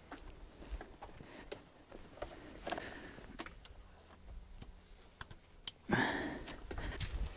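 Faint scattered clicks and rustles of MC4 solar cable connectors and wiring being handled. About six seconds in comes a louder, short breathy vocal sound.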